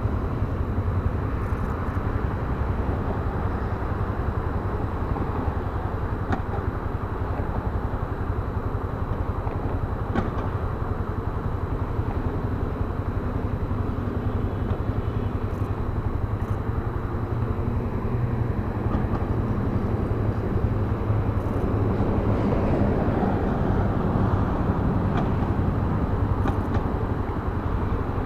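Yamaha Fazer BlueFlex motorcycle running while being ridden, its engine a steady low drone under wind and road noise, a little louder in the last third.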